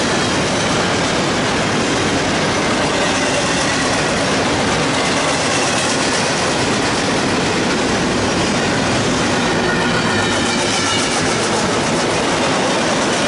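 Empty double-stack intermodal well cars rolling past at speed: a steady, loud rush of steel wheels on rail with rattling and clickety-clack. A faint high-pitched wheel squeal wavers in and out in the second half.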